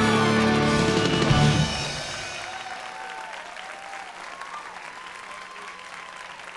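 Show music stops about a second and a half in, then audience applause carries on and slowly dies down.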